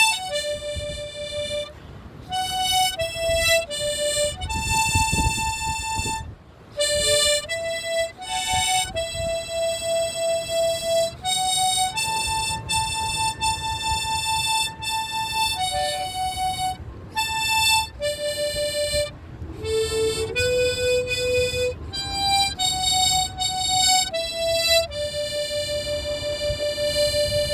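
Harmonica played slowly one note at a time, with some notes held for a second or more, by a learner still practising.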